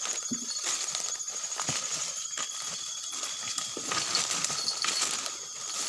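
Night forest insects trilling steadily at several high pitches, with scattered clicks and knocks.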